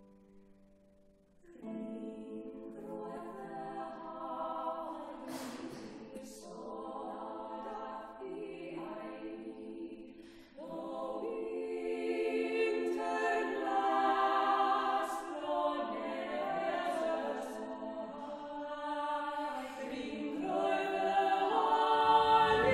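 A small group of women's voices singing a carol in harmony, phrase by phrase, after a plucked note dies away at the start. A low thump comes near the end as the instruments come back in.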